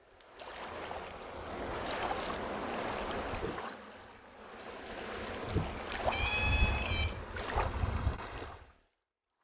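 Rushing river current, fading in at the start, with wind rumbling on the microphone in the second half and a brief high-pitched tone about six seconds in. The sound fades out shortly before the end.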